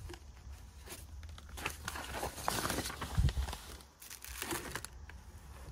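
Old newspaper and magazine pages rustling and crinkling as they are lifted and shuffled by hand, in irregular bursts, busiest in the middle, with a soft low thump a little after three seconds in.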